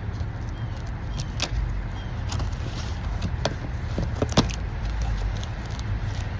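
A package being handled and opened by hand: scattered sharp clicks and crinkles over a steady low background rumble.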